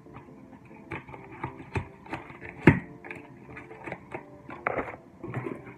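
A mini tripod and its small paper box being handled: rustling packaging with scattered taps and clicks, the sharpest about two and a half seconds in. Faint background music runs underneath.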